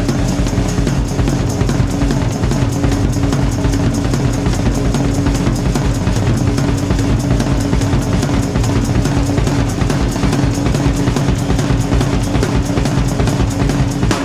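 Background music with a steady drum-kit beat of bass drum and snare.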